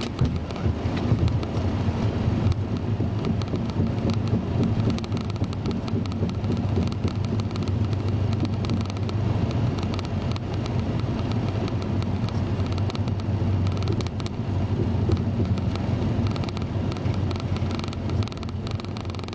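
Boeing 737 flight-deck noise during the landing roll: a steady low rumble of engines, airflow and wheels on the runway as the jet rolls out, easing slightly near the end.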